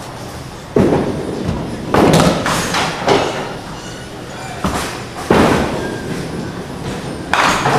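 Duckpin bowling alley din: about six sharp thuds and clatters of balls and pins in seven seconds, each dying away in the hall, over a low rolling rumble.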